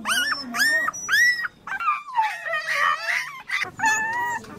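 Young puppies howling and yelping: a string of short, high cries that rise at the start and then hold, with a longer falling cry about two seconds in and several cries overlapping just after it.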